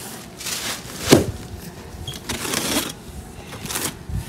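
A large cardboard box scrapes and lands with a thump about a second in as it is set down. Then come short rasps of a box cutter slicing through its packing tape.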